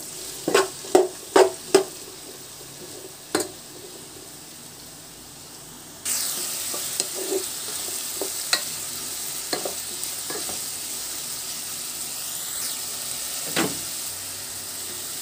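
Chopped onions and green chillies sizzling in hot oil in a pan, stirred with a spoon that scrapes and taps against the pan. A quick run of spoon strokes comes in the first two seconds, and the sizzle turns suddenly louder and steadier about six seconds in, with a few more taps after that.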